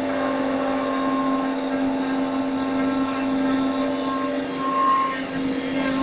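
Three-axis CNC router machining a wooden door, its spindle and motors running with a steady hum.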